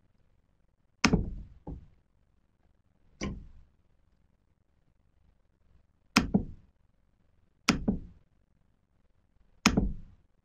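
Isolated sharp clicks and knocks from operating a computer at the desk, about seven at uneven intervals, a couple of them in quick pairs.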